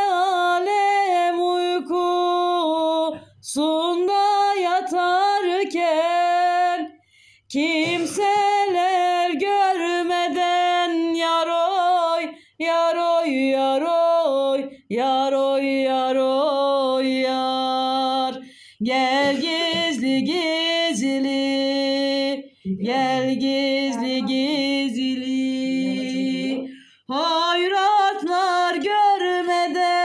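A woman singing a Turkish folk song (türkü) unaccompanied, in long drawn-out phrases with wavering, ornamented pitch and short pauses for breath between them.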